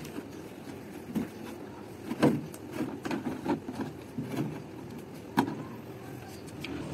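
Large clear plastic water jug being handled, its plastic cap taken off and put back, with light plastic clicks and crinkles and two sharper clacks about two seconds in and about five seconds in, over a steady low background rumble.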